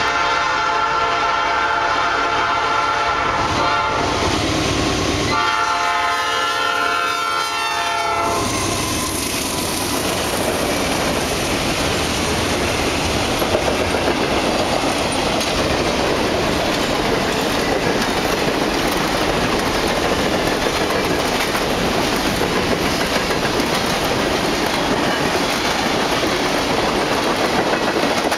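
Nathan P5 five-chime air horn on a Norfolk Southern GE C40-9W locomotive blowing two long blasts for a grade crossing, the second starting about five seconds in. From about eight seconds in, the locomotives and a long freight train of hopper and tank cars roll past close by, with a steady rumble and rattle of wheels on the rails.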